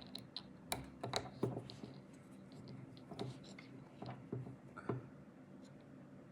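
Scattered small clicks and scrapes of a hex key turning screws to tighten them on a 3D printer's metal frame, busiest between about one and one and a half seconds in.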